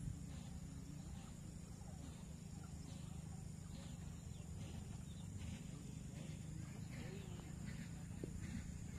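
Faint open-air rural ambience: a steady low rumble and a thin high hum, with faint distant bird chirps scattered through.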